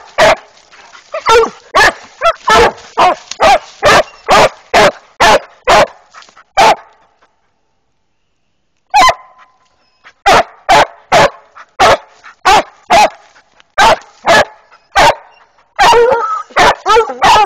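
Treeing Walker coonhounds barking at a treed raccoon, steady repeated barks at about two a second. The barking breaks off for about two seconds midway, then resumes and grows denser near the end as two dogs bark over each other.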